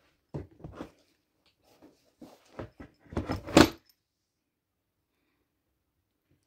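Plastic and metal clicks and rattles from a For Your Little One travel-system car seat and its stroller frame being handled, in several short bursts, the loudest clatter about three and a half seconds in.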